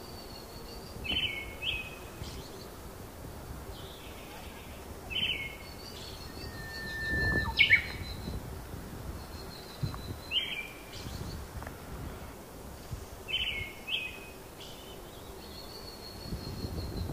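Songbirds calling outdoors: a short, high, falling call repeats every few seconds, with thinner high whistles between, over a low outdoor rumble.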